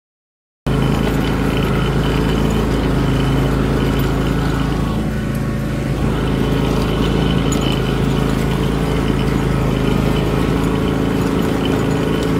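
John Deere riding lawn mower's engine running steadily under way while mowing grass, cutting in abruptly less than a second in.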